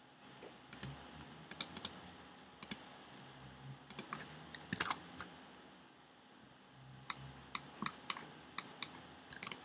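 Computer keyboard being typed on, sharp separate key clicks in two runs with a pause of about two seconds in the middle.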